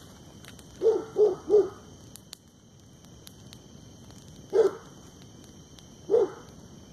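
A dog barking: three quick barks about a second in, then single barks near the middle and near the end, over the light crackle of a burning brush fire.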